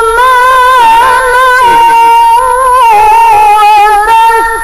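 A woman's voice reciting the Quran in melodic tilawah style, drawing out a long, ornamented note at a high pitch that wavers up and down and steps slightly lower about three seconds in.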